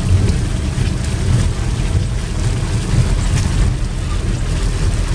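Inside a moving van on rain-soaked streets: a steady low engine and road rumble, with tyres on wet asphalt and rain on the windshield.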